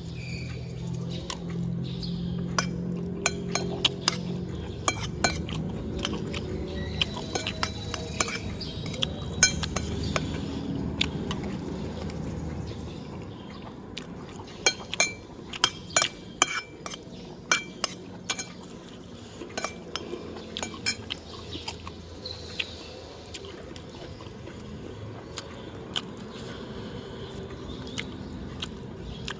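Cutlery clinking against a plate and dishes while eating, with scattered sharp clinks that bunch up about halfway through. A low steady hum sits underneath for roughly the first dozen seconds, then drops away.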